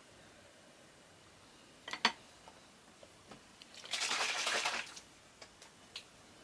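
A wooden spoon is set down on the table with a sharp double clack about two seconds in. Near the middle comes about a second of rustling as a hand reaches for a seasoning bottle, then a few faint ticks.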